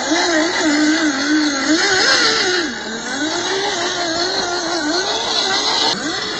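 Electric drive motor and gearbox of an MN86K scale RC crawler whining, the pitch rising and falling continually with the throttle as it crawls through mud. The sound changes abruptly about six seconds in.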